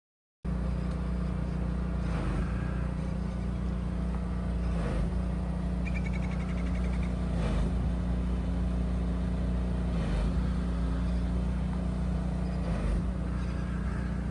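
Steady drone of a moving road vehicle, its engine and road noise running evenly. Soft thumps come about every two and a half seconds.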